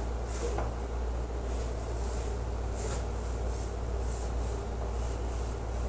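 Hand scrubbing of a wall with a sponge or brush: soft, irregular rubbing swishes, over a steady low hum.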